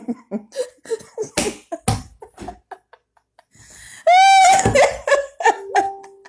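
Woman laughing: about four seconds in she breaks into a loud, high-pitched laugh, followed by shorter laughs.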